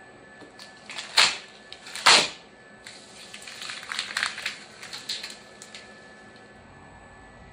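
Thick PE500 polyethylene pieces scraping and rubbing against each other as the machined part is freed from its cut-out frame: two loud scrapes about a second apart, then a run of softer scraping and rubbing for a few seconds.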